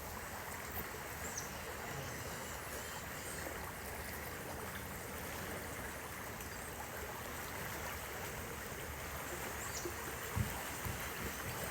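Steady hiss of the flooded Suwannee River flowing, an even wash of water noise with no distinct events.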